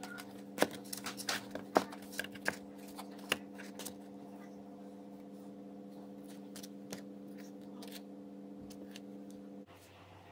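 A steady electrical hum with a run of sharp clicks and crackles in the first few seconds, a few more scattered after; the hum cuts off suddenly near the end.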